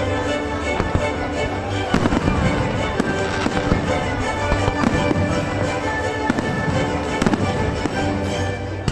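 Fireworks going off in a dense string of sharp bangs and crackles over music playing loudly.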